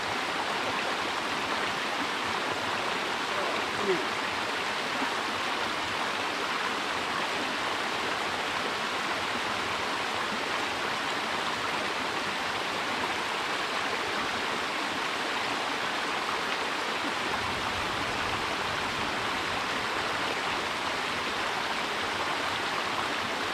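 Creek water spilling over a beaver dam of sticks, a steady rushing noise.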